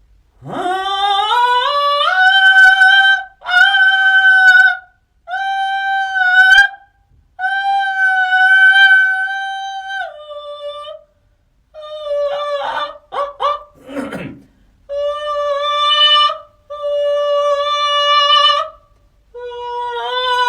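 A vocal warm-up sung on wordless vowels: the voice slides up into a long held high note, repeats several held high notes, then drops to lower sustained notes with a few short, choppy notes in between.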